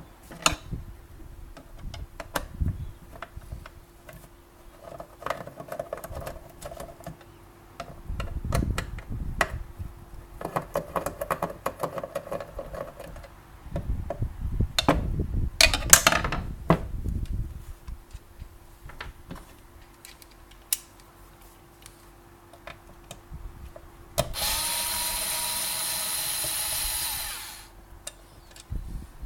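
Hand tools and plastic casing knocking and clicking as a small kitchen appliance is handled, then a power driver running steadily for about three seconds near the end, backing out screws.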